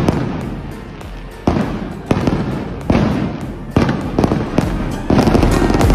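Aerial firework shells bursting overhead in quick succession, about one bang a second, each trailing off in an echo.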